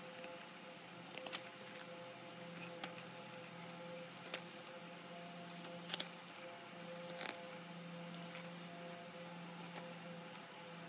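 Glossy pages of a large photobook being handled and turned, with a few soft paper flicks and taps over a steady low hum and hiss.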